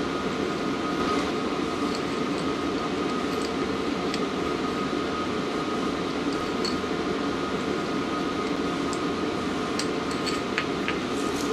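Diesel-fired warm air heater running steadily: a constant fan whir with a faint tone in it. A few faint light clicks come from small metal parts being handled.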